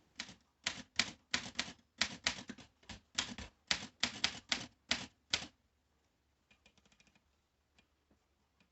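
Typing on an Aztec 600, a Rheinmetall-built German portable manual typewriter from about 1961: a quick run of sharp keystrikes, about four a second, that stops about five and a half seconds in. A few much fainter light clicks follow.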